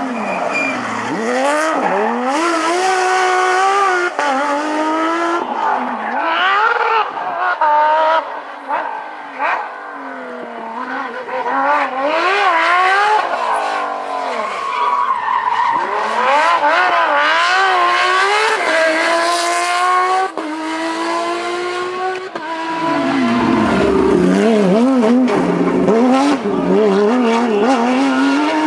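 Rally car engines revving hard, the pitch climbing and dropping sharply again and again through gear changes and lifts, as several cars pass in succession, with some tyre noise on the loose surface.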